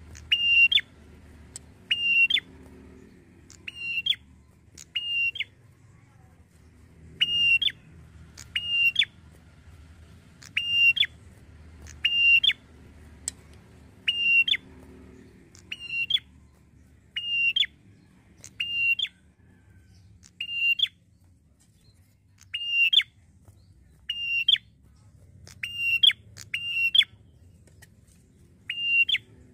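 Tailorbird calling: loud, sharp, high notes, each ending in a quick upward flick, given singly or in quick pairs about every one and a half seconds, used as a lure call to provoke other tailorbirds into answering.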